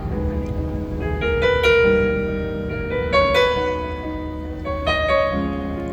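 Piano playing a slow instrumental passage between sung lines, with single notes and chords struck at an unhurried pace and left to ring.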